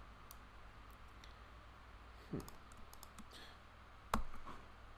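Computer mouse clicks and keyboard key presses: a few scattered sharp clicks, the loudest a little after four seconds, over a faint low hum.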